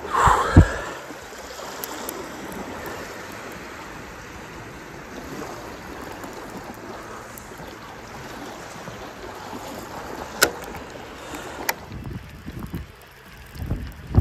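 Gentle sea wash and wind across the microphone, with a short louder scrape and a sharp click in the first second and two faint ticks later on. Wind buffets the microphone near the end.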